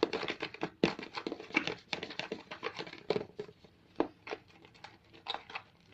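Glue-and-shaving-gel slime being stirred just after its mouth-swab-solution activator went in, as it starts to thicken and turn stretchy. It makes a quick, irregular run of sticky wet clicks and smacks that thins out after about four seconds.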